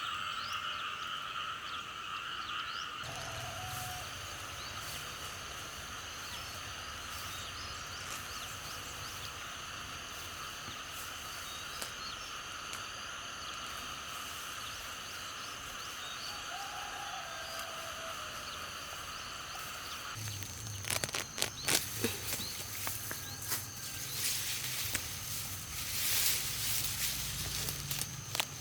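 A steady chorus of calling frogs. About twenty seconds in it stops, and irregular knocks and rustles follow.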